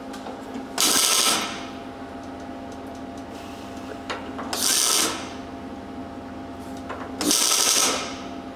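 MIG welder arc crackling in three short welds of about half a second each, spaced a few seconds apart, over a steady hum.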